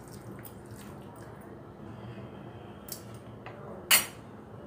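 Hand mixing masala-coated fish pieces in a bowl: soft, wet squishing with a few small clicks, and one sharp click about four seconds in.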